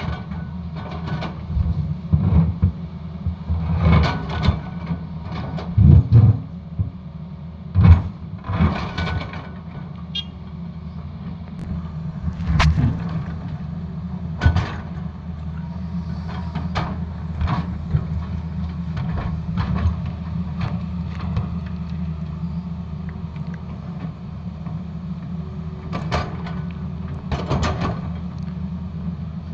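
Excavator's diesel engine running steadily, with irregular clanks and knocks from the machine at work, most frequent in the first ten seconds.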